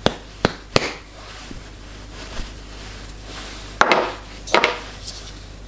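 Three sharp knocks or clicks in the first second, then two short rustles about four seconds in, as ground cumin is sprinkled by hand over raw steaks on a wooden cutting board.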